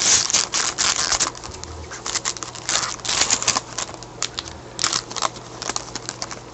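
Trading cards being handled and slid against one another, in several short spells of quick crisp rustling and clicking with quieter gaps between, the loudest in the first second.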